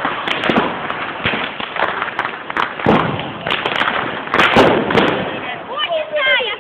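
Fireworks and firecrackers going off all around: a dense, continuous run of bangs and crackles, with louder sharp cracks about three and four and a half seconds in.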